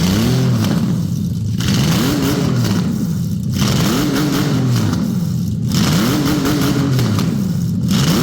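Toyota 1GZ-FE 5.0-litre V12 engine being revved, its pitch rising and falling again about every two seconds, four or five blips in a row. The engine has only just been started after standing unused for a long time.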